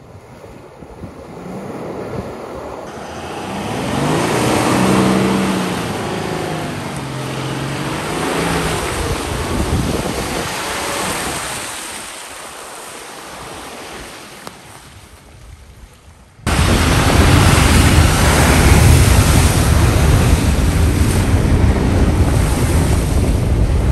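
Toyota Land Cruiser 300's 3.3-litre twin-turbo diesel driving off-road, its engine note rising and falling under a rushing noise of tyres and wind. About two-thirds of the way in it cuts suddenly to a louder, steady rushing noise.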